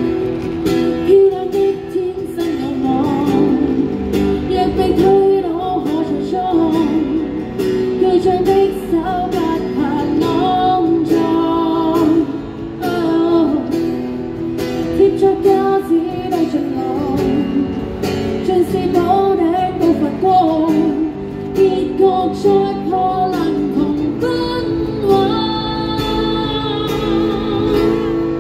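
A woman singing a Cantonese pop song into a microphone, accompanying herself on a strummed acoustic guitar, both amplified through a small street amplifier.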